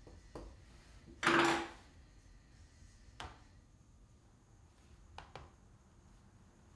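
A short scuffing sound, lasting about half a second, comes about a second in and is the loudest thing. A few light clicks follow, spaced a couple of seconds apart, from a laptop trackpad being clicked.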